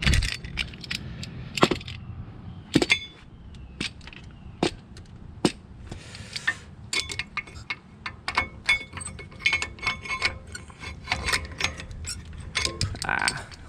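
Irregular metallic clicks and clinks of a brake caliper piston compressor tool being handled and fitted against a brake pad in a rear disc brake caliper, some strikes ringing briefly.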